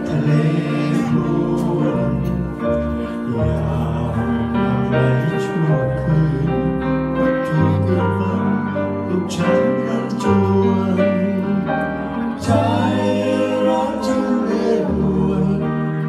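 Live band playing a song: electric guitars, a low bass line and a Korg Kross keyboard, with singing over them.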